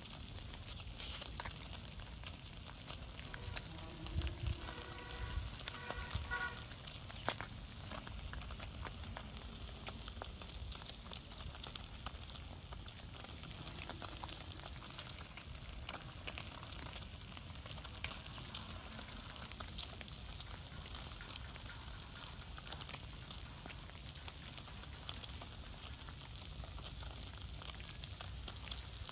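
Small wood fire crackling with scattered pops and a steady hiss as fish skewered on sticks grill over it. A brief pitched sound rises over it about four to six seconds in.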